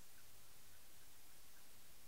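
Quiet room tone: a faint steady hiss with a few small, faint ticks.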